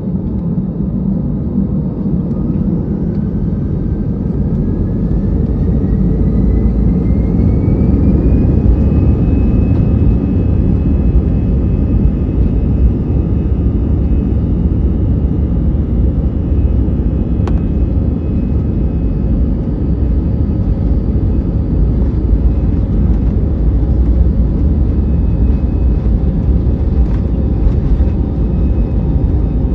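Airbus A320 jet engines spooling up to takeoff thrust: a whine rises in pitch over the first several seconds and then holds steady, over a loud rumble of the takeoff roll.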